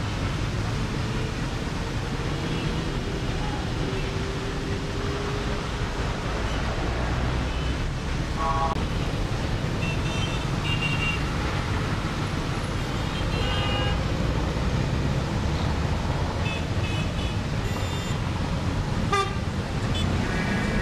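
Steady rumble of slow, heavy road traffic, with short vehicle horn toots sounding now and then, several of them in the second half.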